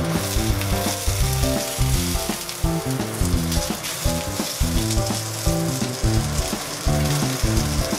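Gyoza frying in a Vermicular enamelled cast-iron frying pan: a steady sizzle as their bottoms brown. Background music plays over it.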